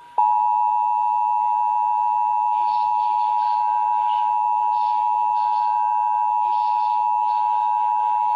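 Emergency Alert System attention signal: a steady two-tone alert tone (853 and 960 Hz together) that starts a moment in and holds without change. It is the tone that announces an emergency alert broadcast, here the national EAS test.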